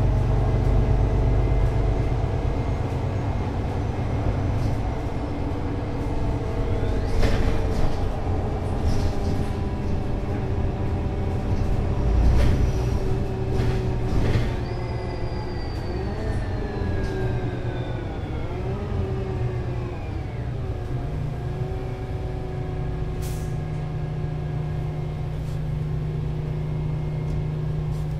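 Solaris Urbino 18 IV articulated bus with a DAF diesel engine and Voith DIWA.6 automatic gearbox, slowing down: the engine note falls steadily and a high gearbox whine drops in pitch about halfway through. A few short hisses and clicks come along the way, and the engine settles to a steady idle for the last several seconds.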